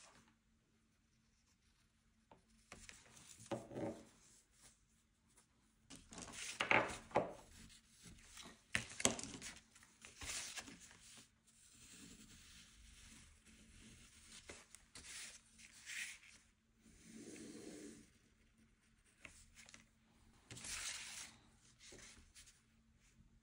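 Irregular rubbing and scratching on paper by hand-held art materials, in short bouts of a second or so with pauses between, loudest about a third of the way through.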